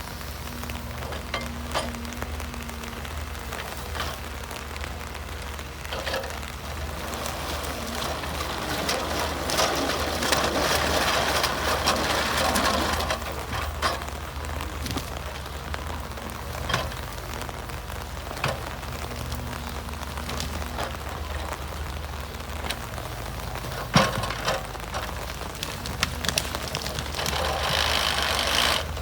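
Forestry harvester at work: its diesel engine runs steadily under crackling and rattling as the KETO processing head feeds and delimbs a log, with scattered knocks. The noise swells from about nine to thirteen seconds in and again near the end.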